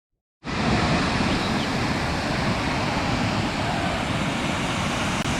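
Steady rushing of a large river waterfall, cutting in abruptly about half a second in.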